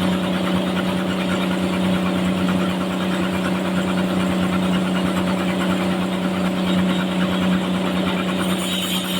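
Sawmill running with a steady machine hum at an even pitch. A higher, hissing whine joins in near the end.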